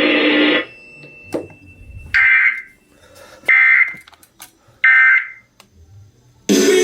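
Three short, buzzy electronic data bursts, each about half a second long and a little over a second apart, like the coded header an Emergency Alert System receiver sends before a warning message. Broadcast audio cuts off just before them, and a loud burst of other sound starts near the end.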